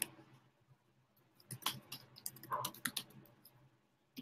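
Irregular computer keyboard and mouse clicks, bunched together in the middle stretch.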